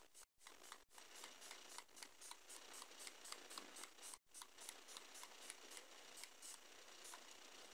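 Faint, rapid pumps of a makeup setting spray bottle misting the face: a quick run of short spritzes, about four a second.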